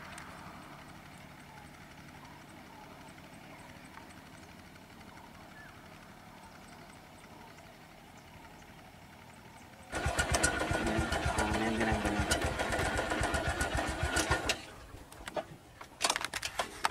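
Motorcycle engines idling faintly; about ten seconds in, a motorcycle engine close by revs loudly for about four seconds, its pitch rising and falling, then drops away, followed by a few sharp knocks.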